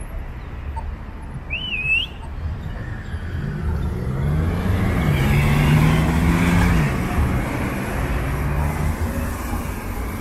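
Street traffic with a car, an SUV, driving past close by: its engine note swells, is loudest about six seconds in, then fades. A brief wavering whistle sounds about two seconds in.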